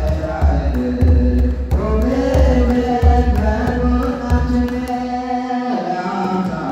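Group singing of an Ethiopian Orthodox church hymn, with a large kebero drum beaten in a loose rhythm under the voices. The drum drops out near the end while the singing holds on.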